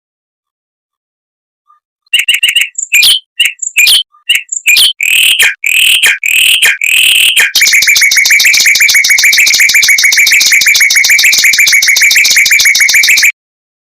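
Mockingbird singing. After a short silence comes a string of short, loud, separate notes, then a long, very fast rolling trill that cuts off suddenly near the end.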